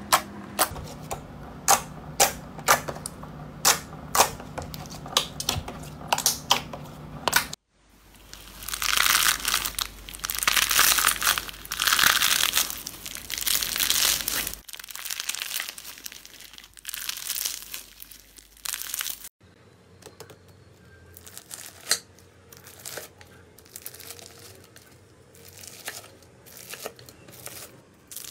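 Slime being squeezed and poked. It starts with sharp popping clicks, a couple a second over a low hum. About eight seconds in it changes to dense crunchy crackling, typical of crunchy slime being pressed. From about two-thirds of the way through there are sparser, softer pops and clicks.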